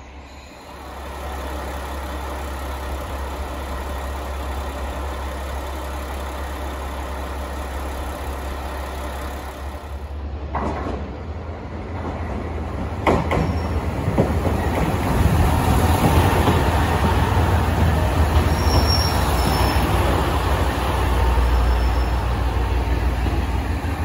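Diesel railcar engines running: first a steady low hum from a KiHa 40-series diesel railcar. About ten seconds in, a KiHa 187 diesel express railcar pulls in alongside the platform and grows louder, with engine and wheel-on-rail noise and a few knocks.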